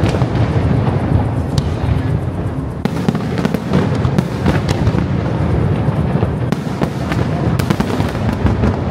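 Aerial fireworks bursting close by in quick succession: a continuous low rumble of explosions with sharp cracks every second or so, thickest about halfway through and near the end.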